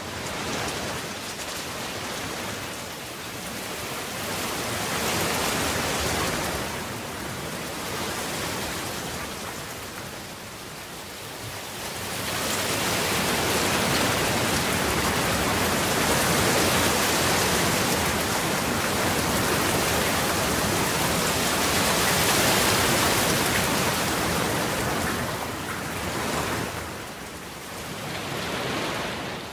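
Rain falling, a dense, even hiss that swells louder a little before halfway through and eases back near the end.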